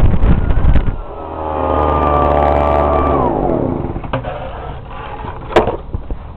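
Husqvarna 125BT backpack blower's small two-stroke engine running shortly after a cold start, blowing at high throttle. It is held steady at high revs, then drops in pitch about three seconds in as the throttle is let off, and runs quieter after that, with a knock near the end as the blower is set down.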